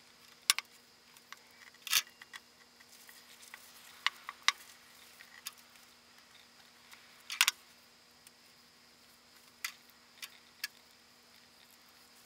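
Scattered sharp light knocks and clicks from handling glued-up strips of western red cedar and plastic spring clamps during a glue-up, some in quick pairs, over a faint steady hum.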